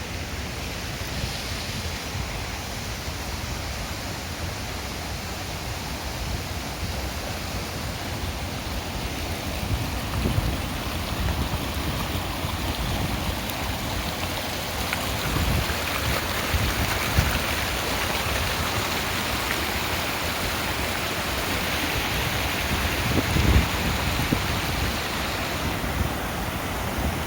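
Stream running over stones, a steady rush of water, with wind buffeting the microphone in gusts.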